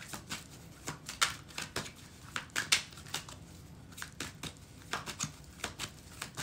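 Tarot deck shuffled by hand: an irregular run of short card snaps and rustles, about two or three a second.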